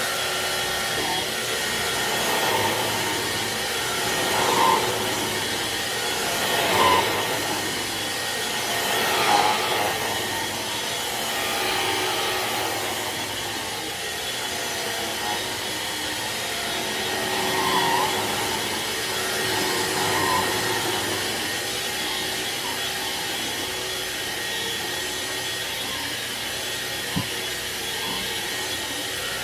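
Hoover Air Cordless stick vacuum running on its carpet setting: a steady motor whine and airflow rush that swells and eases every few seconds as it works across the floor.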